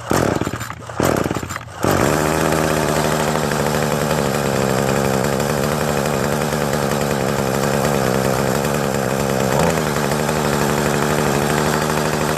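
Craftsman gas string trimmer engine: a couple of short sputtering bursts, then about two seconds in it catches and runs steadily at idle. The engine now starts and keeps running after the carburetor cleaning and the new fuel lines and filter.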